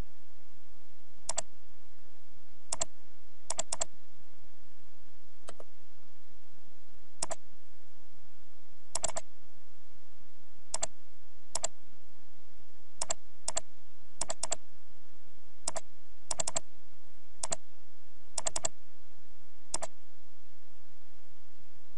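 Computer mouse buttons clicking at irregular intervals, single clicks mixed with quick double-clicks, over a steady background hiss.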